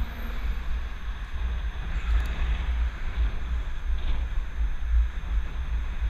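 Wind buffeting the microphone of a helmet-mounted GoPro on a moving bicycle: a loud, constantly fluttering low rumble over a steady hiss of air and road noise.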